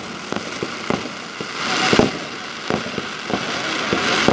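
Fireworks display: a rapid, irregular series of bangs and pops, with swells of crackling hiss about halfway through and near the end.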